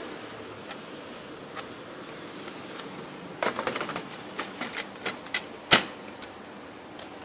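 Plastic clicks and rattles from an HP LaserJet P1102's black toner cartridge being pushed into its slot in the printer. A quick cluster of clicks comes about halfway in, then several single clicks, with one sharp snap, the loudest, about two-thirds of the way through.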